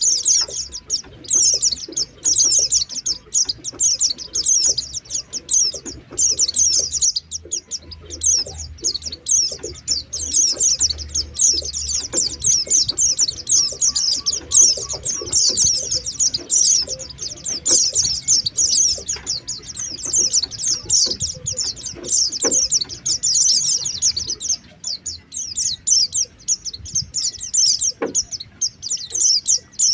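White-eyes (pleci) twittering continuously in fast, high chattering notes: a white-eye lure call used to draw wild white-eyes in.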